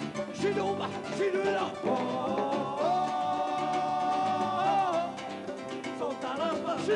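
Live rumba band playing: a singer's voice, holding one long note about midway through, over Spanish guitar and hand percussion.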